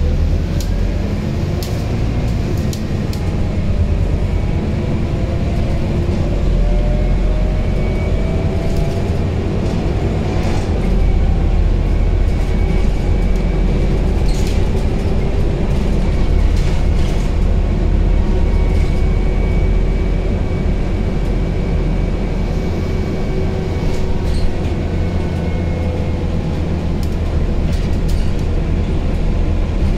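Scania Citywide 12LF CNG city bus heard from inside while driving: the rear-mounted Scania OC09 five-cylinder gas engine and driveline give a steady low rumble, with a whine rising in pitch over the first ten seconds or so. Short clicks and rattles from the interior fittings come through now and then.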